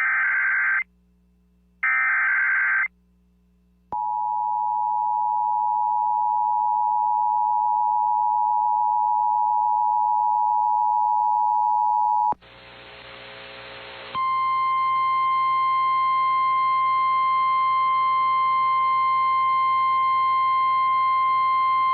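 Emergency Alert System signal: two short buzzy SAME data bursts in the first three seconds, then the steady two-tone attention signal for about eight seconds. After a brief hiss of radio static, a single steady NOAA Weather Radio 1050 Hz alert tone sounds for about nine seconds, heralding a severe thunderstorm warning.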